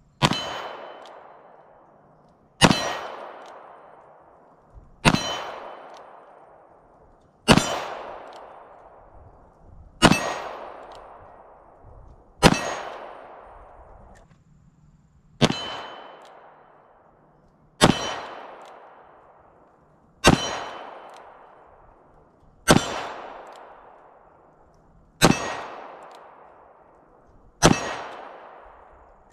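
Kimber K6s .357 Magnum revolver firing single-action, twelve shots evenly spaced about two and a half seconds apart, each with a ringing, echoing tail that dies away over a second or two.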